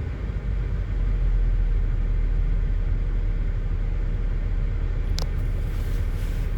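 3.6 L V6 engine of a 2008 GMC Acadia idling with a steady low rumble while misfiring on cylinder 5, a fault traced to a bad ignition coil and spark plug. A short click about five seconds in.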